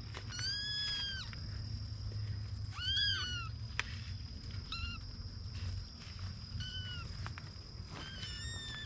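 Kittens mewing: about five high-pitched, arching calls, the first and longest lasting about a second, the others shorter. A steady high-pitched hum runs underneath.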